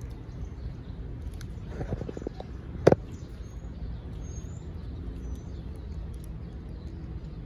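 Steady low outdoor background noise with a few faint, high bird chirps. About three seconds in comes one sharp, loud click, just after a few softer handling knocks.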